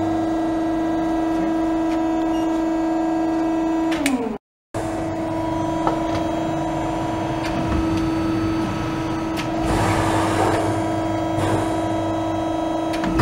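Amada Promecam CNC pressbrake running, its hydraulic system giving a steady hum. The hum drops in pitch and cuts out briefly about four seconds in, then resumes. Scattered clicks and a short rush of hissing noise about ten seconds in come from the machine's moving axes.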